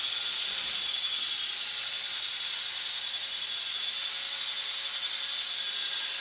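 Small 3D-printed six-legged walking robot running, its N20 gear motor spinning a plastic worm gear and leg linkages. The result is a steady, mostly high-pitched mechanical whir with a fine ratcheting chatter of gears.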